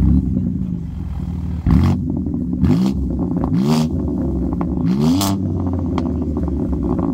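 BMW M2 G87's twin-turbo inline-six through a straight-piped Eisenmann exhaust, very loud: the engine is blipped several times in quick succession, each rev sweeping up and dropping back with a sharp crack at its peak, then settles to a steady idle.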